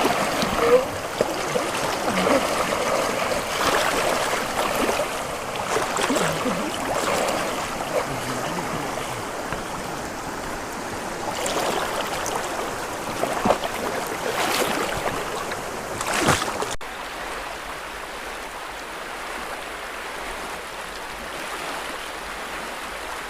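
River water rushing and splashing, with a few sharper splashes in the middle. About 17 s in the sound cuts abruptly to a quieter, steady water hiss.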